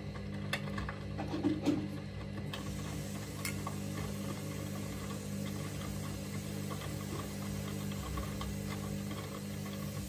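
Candy Smart front-loading washing machine in its wash phase, the drum turning wet coloured laundry: a steady motor hum with small knocks and splashes of the clothes tumbling, a few louder thumps in the first couple of seconds.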